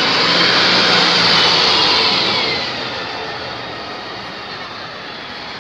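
Ikarus 260 city bus's diesel engine pulling away from a stop and passing close by, loudest about a second in. Its pitch drops as it goes past, then it fades as the bus drives off.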